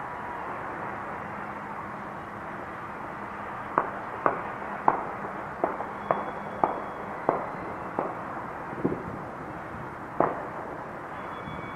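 Fireworks going off: about ten sharp bangs, roughly two a second, starting about four seconds in, then a single bang near the end, each with a short echo. A steady hiss runs underneath.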